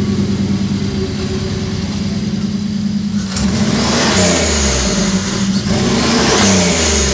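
Turbocharged V6 of a first-generation Dodge Dakota idling, then revved twice from about three seconds in, its pitch rising and falling. It sounds angry: the ignition is firing evenly but in the wrong order for the engine, so most cylinders fire at the wrong time.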